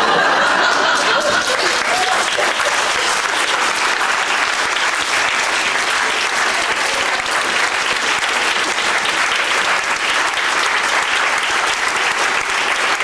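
Audience applauding: a long, steady round of clapping, marking the end of a live stage performance.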